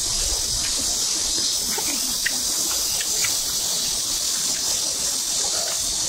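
A dense chorus of late-summer cicadas, a steady high-pitched buzz, with a few light clinks of spoons against stainless steel bowls.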